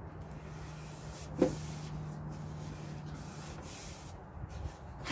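Fingers rubbing blue painter's tape down onto a wooden drawer front, a soft hissy rubbing, with one sharp knock about a second and a half in. A steady low hum runs underneath.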